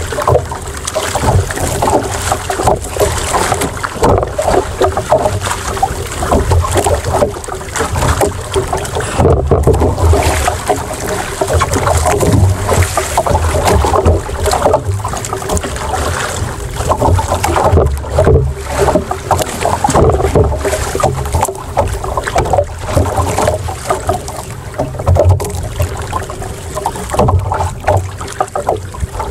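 Wind buffeting the microphone and water slapping against a small outrigger boat, with a rumble that rises and falls, while a large saltwater spinning reel is cranked to bring in a fish on a deep jig.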